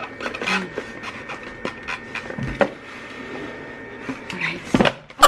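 Scattered clicks, taps and rustles of a small plastic RF skin-tightening device being handled and switched off, over a faint steady electrical hum, with a heavier thump near the end.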